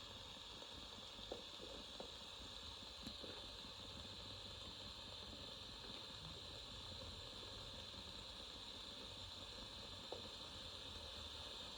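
Faint, steady static hiss from a General Electric 7-2930D radio tuned between stations, picking up no signal, with a few faint clicks.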